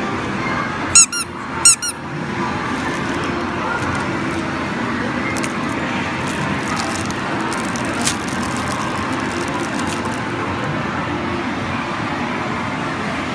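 Two short, high squeaks from a small vinyl Disney Tsum Tsum squeeze toy being squeezed by hand, close together about a second in, over a steady arcade background din.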